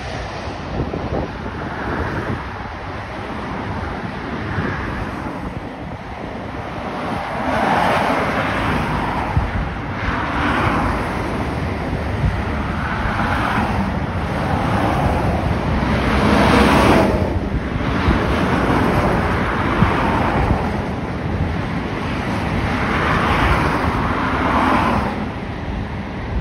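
Wind buffeting the microphone with a steady low rumble. Over it, engine noise swells and fades several times, each swell lasting a few seconds, the strongest about two-thirds of the way through.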